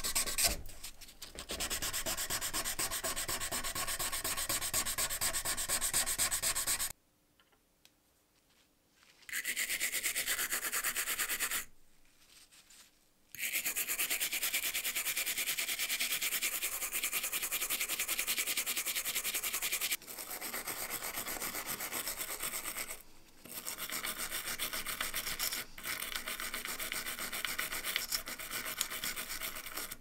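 Abrasive paper rubbed by hand against the brass shell of a vintage lighter, then a small brass wire brush scrubbing the lighter's perforated brass chimney in fast back-and-forth strokes. Two short pauses break the scraping about a third of the way in.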